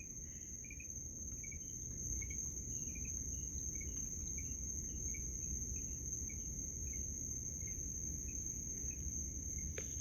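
Crickets trilling: a steady high-pitched drone with a fainter, higher band above it and scattered short faint chirps, over a low background rumble.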